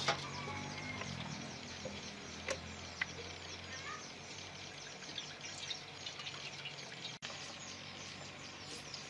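Many small birds chirping steadily, with a couple of light knocks about two and a half and three seconds in.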